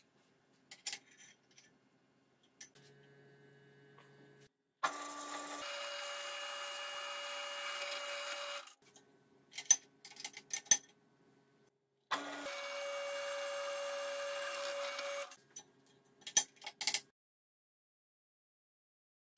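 Benchtop drill press motor running twice, about four and three seconds long, each switched on and off abruptly with a steady whirring hum. Between the runs come sharp clicks and clatter of handling.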